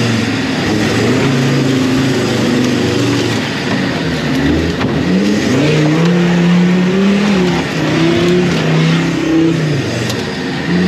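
Off-road race truck's engine revving up and down while driving over rough ground, its pitch climbing about four seconds in, holding high, then dropping back and picking up again near the end.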